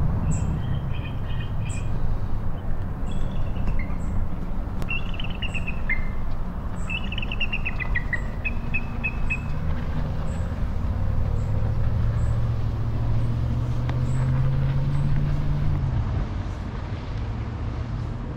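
Small birds chirp and trill over a steady low rumble through the first half, with faint high ticks repeating about every half second. From about two-thirds in, a boat motor's drone rises slowly in pitch, then cuts off shortly before the end.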